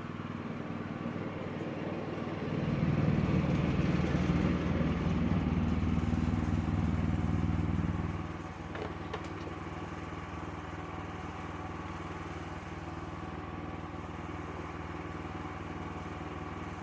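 Sawmill engine running steadily. About two and a half seconds in it gets louder and heavier for some five seconds, then drops back to a lower steady run.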